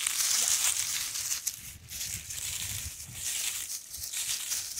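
Footsteps crunching through dry leaf litter and brush rustling, a continuous crackly rustle with a few sharper crackles, over a low rumble.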